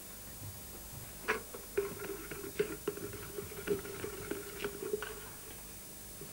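Paintbrush tapping and scraping in a paint pot: a run of small irregular clicks, with a faint steady tone underneath for about three seconds in the middle.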